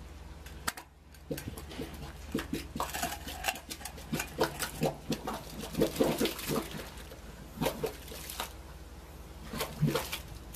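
Air bubbling up through thick wastewater in irregular gurgles, glugs and plops, over a steady low hum.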